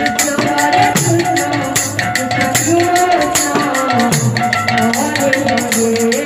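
Live kirtan music: a woman sings a devotional song through a microphone over a two-headed barrel drum and jingling hand cymbals that keep a quick, steady beat, with sustained harmonium-like tones underneath.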